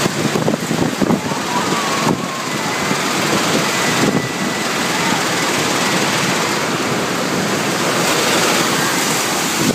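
Tornado wind blowing in through a wide-open hangar door: a loud, steady rush of noise, with a few knocks in the first two seconds.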